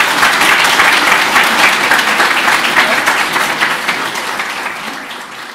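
Audience applauding at the close of a talk, a dense patter of many hands clapping that begins to fade near the end.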